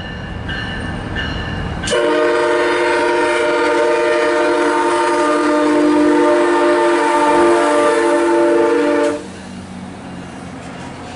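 MARC MP36 diesel locomotive approaching, then sounding one long blast of its multi-tone air horn, a chord held about seven seconds from about two seconds in, that cuts off suddenly; the rumble of the passing train continues after the horn stops.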